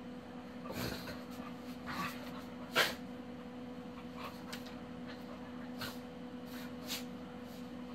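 Two dogs playing: a string of short, sharp scuffles and huffs, the loudest about three seconds in.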